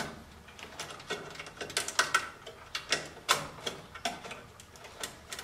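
Irregular clicks and rustling of wires being handled as a furnace blower lead's spade connector is pulled off the old control board and pushed onto a terminal of the new control board.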